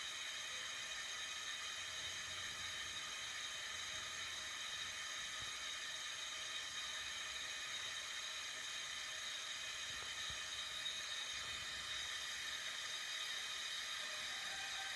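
Gas stove burner running, a steady, even hiss of gas and flame.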